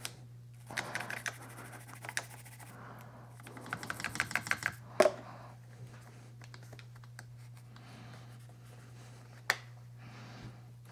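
A toothbrush scrubbing the metal and plastic of a Kirby Generation 3 vacuum's motor assembly in short bursts of quick scratchy strokes, with a sharp knock about five seconds in and another near the end.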